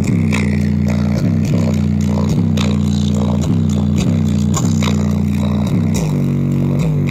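JBL Charge 4 portable Bluetooth speaker playing a slowed-down bass-heavy track at full volume: deep bass notes that slide down in pitch about twice a second over regular drum hits, with the bass pattern changing about six seconds in. The side passive radiator is being driven hard.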